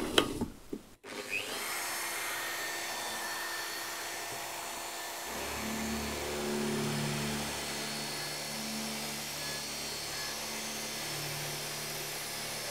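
Electric drill in a drill stand spinning up and running steadily, an 8.5 mm metal twist bit boring a bolt hole through solid wood. From about five seconds in, a lower hum comes and goes as the bit cuts.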